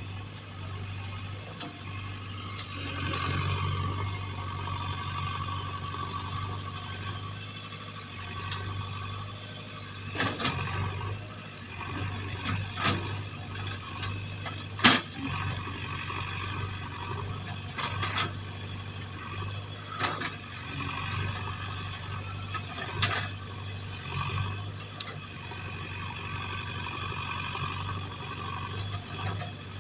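JCB backhoe loader's diesel engine running steadily, with sharp knocks every few seconds in the second half.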